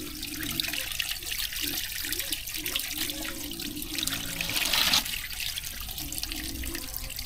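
Shallow water splashing and trickling, with a louder splash about four seconds in.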